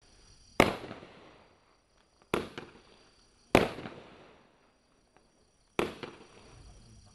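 A 40-shot Brocade Barrage fireworks cake firing. Four sharp bangs come at irregular gaps of one to two seconds, each trailing off over about a second, and another starts at the very end.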